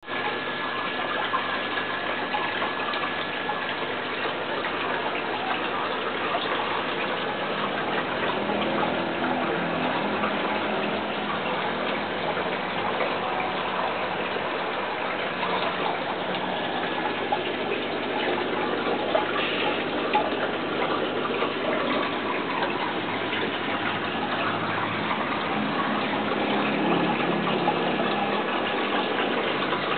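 Water circulating in a small fish tank, a steady rush and splash of moving water that does not let up.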